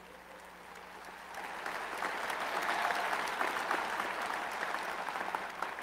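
Audience applauding, swelling in from about a second in, holding steady, then easing slightly near the end; heard well below the level of the podium speech.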